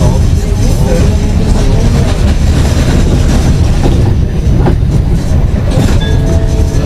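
Tram running along street track, heard from inside the car: a loud, steady low rumble from the wheels and running gear, with a few sharp clacks as the wheels cross rail joints.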